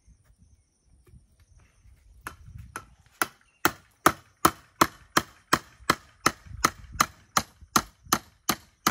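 Claw hammer striking a wooden rung to fix it to a pole ladder. A few scattered blows come about two seconds in, then a steady run of sharp strikes at about three a second.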